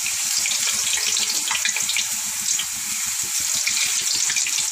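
Raw potato slices frying in hot oil in a steel kadai as more slices are dropped in: a steady sizzle with fine crackling.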